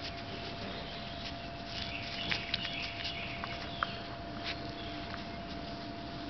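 Backyard ambience: faint bird chirps over a steady thin tone, with a few short clicks and rustles as a puppy moves through the grass close to the microphone.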